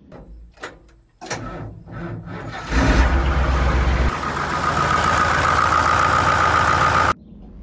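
A few sharp clicks, then an engine cranking and catching about three seconds in, running steadily with a heavy low rumble at first, until it cuts off abruptly near the end.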